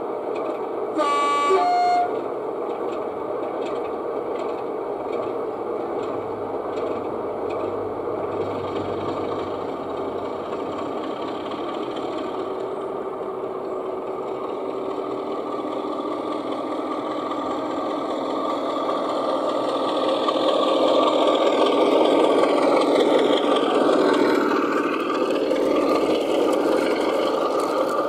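Sound-fitted O gauge model of a Class 33 diesel locomotive: a two-tone horn, a high note then a lower one, about a second in. Then its diesel engine sound runs steadily with the train, getting louder as the locomotive draws nearer, with a whine that bends up and down in pitch near the end.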